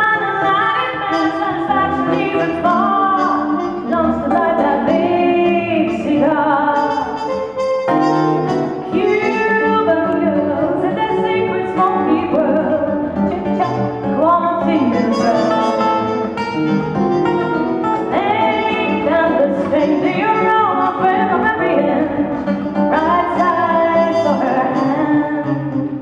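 A woman singing a melody into a handheld microphone, amplified, over instrumental accompaniment with a steady low bass line.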